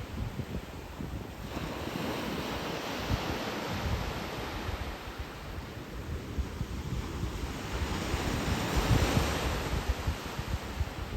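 Atlantic Ocean surf breaking and washing up the beach, one wave swelling about a second and a half in and a louder one breaking near the end. Wind buffets the microphone with a low rumble throughout.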